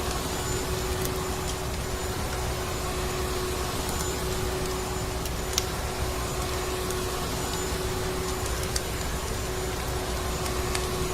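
Vacuum cleaner running steadily, a constant rushing drone with a motor hum, with a few sharp crackling pops from a wood fire in a fireplace.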